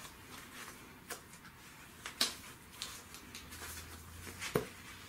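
Plastic-sleeved comic books being flipped through by hand: soft rustling of the plastic bags and boards, with a few short crinkles and taps, the sharpest near the end.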